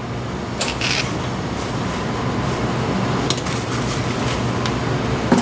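Worn wheel hub bearing assembly from a 1997 Pontiac Grand Am being spun by hand, giving a steady rough rumbling noise with a few light clicks of handling. The noise is the sign of a badly worn bearing; a good one should make no sound at all.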